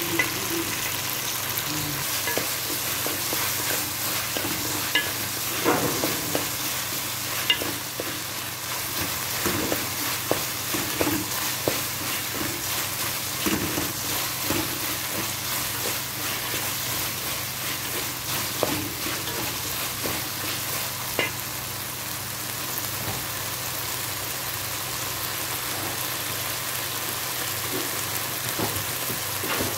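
Chicken and mixed vegetables sizzling steadily in oil in a metal pan, while a wooden spatula stirs and scrapes against the pan now and then.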